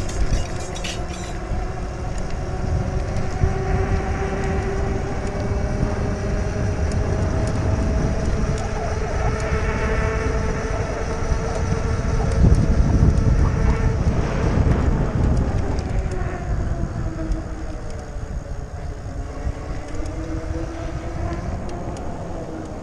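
Electric bike riding fast on a concrete path: wind rumbling on the microphone and tyre noise, with a whine that slowly drifts up and down in pitch. It gets louder about halfway through.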